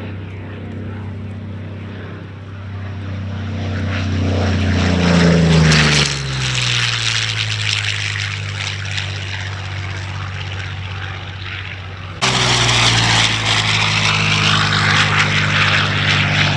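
Curtiss P-40N Warhawk's Allison V-1710 V12 engine and propeller on a flyby: the steady drone grows louder, peaks about six seconds in, and drops in pitch as the fighter passes. About twelve seconds in the sound jumps suddenly louder, the engine running hard close by.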